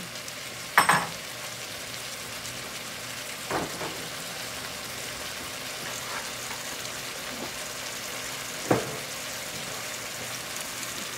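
Ground beef and potatoes sizzling steadily in a frying pan, with three sharp knocks of a utensil or pot against the pan, the loudest about a second in.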